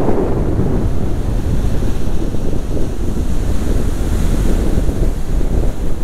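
Heavy surf in a gale-driven rough sea, waves breaking and washing up the beach in a continuous wash of noise. Strong wind buffets the microphone throughout.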